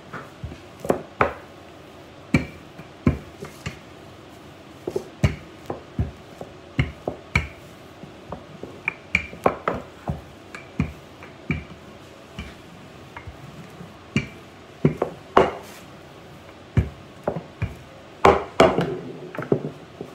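Wooden rolling pin knocking and clacking against the countertop as pizza dough is rolled out: irregular sharp knocks, about one or two a second, bunching together near the end.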